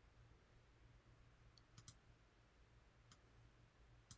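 Near silence broken by a few faint computer mouse clicks: two close together about two seconds in, one about three seconds in and one at the end.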